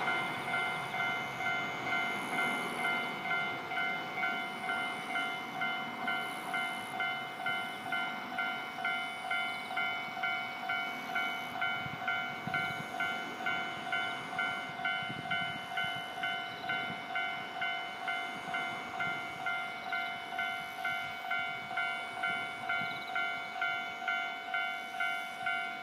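Japanese level-crossing warning bell ringing in an even, fast ding-ding, about three strikes every two seconds. A KiHa 40 series diesel railcar runs through the crossing, its engine and wheel rumble swelling under the bell around the middle.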